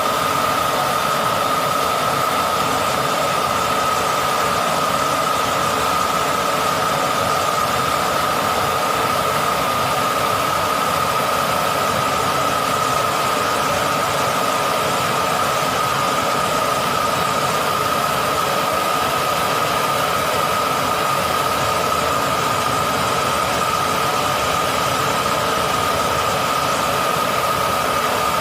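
Gas torch flame burning steadily for copper tube brazing: an even hiss with a constant high whistle running through it.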